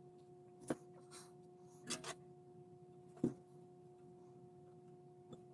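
Faint scattered clicks and taps from hands handling small parts and wire at a workbench, about five over the few seconds, over a steady faint hum.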